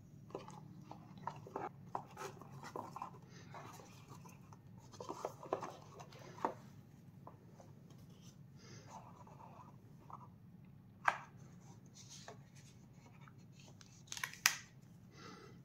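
Soft rustling and light ticks of a ribbon being untied and pulled off a cardboard pen box, then the box being handled and its lid taken off, with one sharper tap about eleven seconds in and a short clatter of handling near the end.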